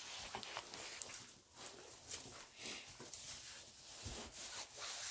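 Soft, irregular rustling and scuffing of puppies moving about in fresh straw bedding, with fur brushing close by.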